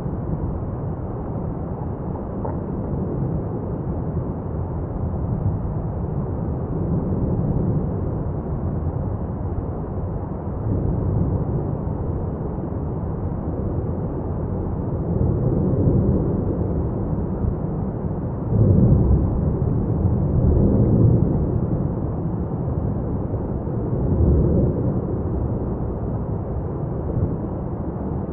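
Lava fountain at Etna's South-East Crater in a paroxysm: a continuous deep roar, swelling louder several times in the second half.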